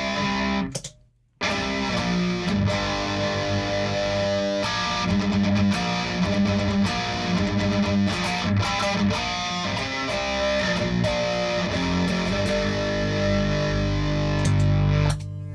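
Distorted electric guitar riffing through the This Heavy Earth Black Mass preamp in its low gain voice, its internal max-gain trim pot backed off a quarter turn from full, amplified by an Orange Pedal Baby 100. The playing breaks off briefly about a second in and stops near the end.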